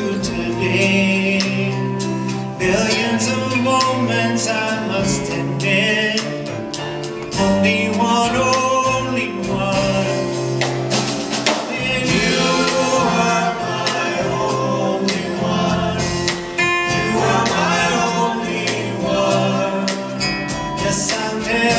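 Live band playing a slow love song, with singing over acoustic guitar, cello, electric bass and drums.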